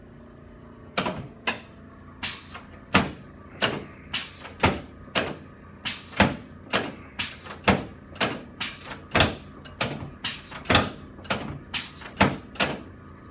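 A series of sharp knocks, about two a second and uneven in loudness, from a chiropractor's hands-on treatment of a patient lying on a treatment table.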